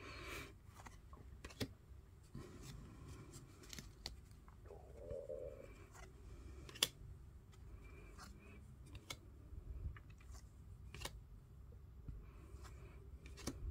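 Match Attax trading cards being flipped through by hand: quiet rustling with scattered short, sharp clicks of card edges, one louder click about seven seconds in.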